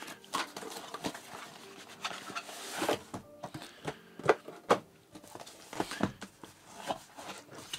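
Cardboard packaging being handled: a plain cardboard inner box rubbing and sliding out of its printed card sleeve, with scattered light knocks of the box on the desk.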